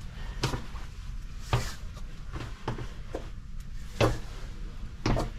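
Footsteps, one roughly every second, as a person walks with the camera.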